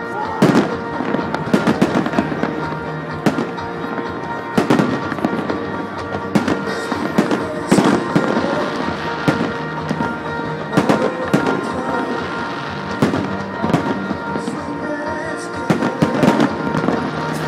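Aerial fireworks bursting over and over, a string of sharp bangs and crackles that comes every second or so throughout.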